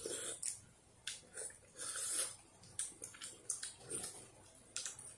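Two people eating hot noodle soup from bowls with spoons: short slurps and sips of broth, with light clicks of spoons on the bowls.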